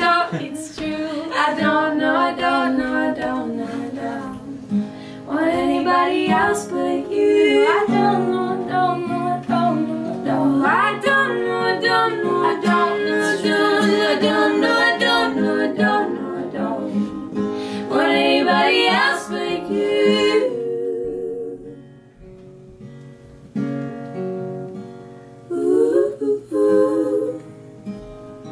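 Live acoustic pop: women singing together over a strummed acoustic guitar. About twenty seconds in the voices stop and the guitar plays on more quietly, with a brief sung phrase near the end.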